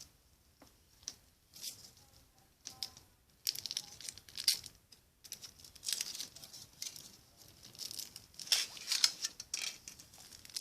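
Foil wrapper of a Kinder Surprise chocolate egg being torn and crinkled off by hand: scattered crackles at first, then denser irregular rustling from about three seconds in.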